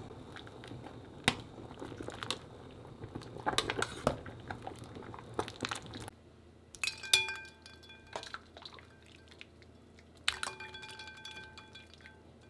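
Metal utensil clinking and scraping in a stainless steel pot of hot water while blanched cuttlefish is lifted out, with water splashing and dripping. In the second half, two sharp clinks on a glass bowl of ice water, each leaving a short ringing tone.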